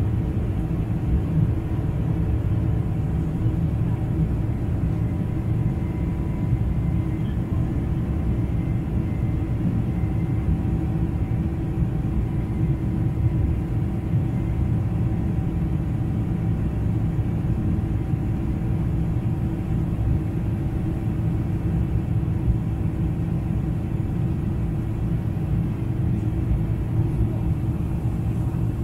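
Steady low rumble of a Boeing 747-400's General Electric CF6 turbofans and the airflow, heard inside the cabin beside the wing during the climb after takeoff, with faint steady engine tones over it.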